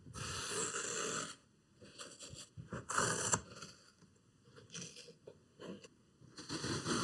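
Scraping and rustling as metal retaining pins are worked out of an old headliner board, in three bursts: a longer one at the start, a short one about three seconds in, and another near the end.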